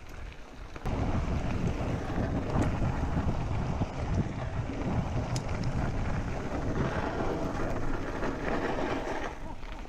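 Wind buffeting the microphone while a mountain bike rattles down a loose dirt-and-gravel trail, its tyres crunching over the surface. The noise rises abruptly about a second in and eases near the end.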